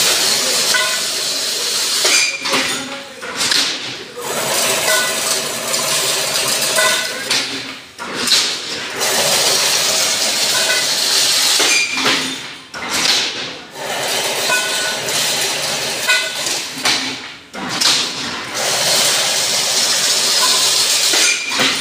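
Automatic chain link fence machine running, twisting wire into mesh: a loud hissing rattle that comes in stretches of a few seconds, broken by short pauses.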